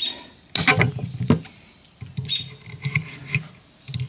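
End-cutting pliers gripping and snipping the thin steel staple legs sticking up from a pallet slat: sharp clicks, the loudest in the first second and a half, then lighter clicks and scrapes of the jaws on the metal and wood.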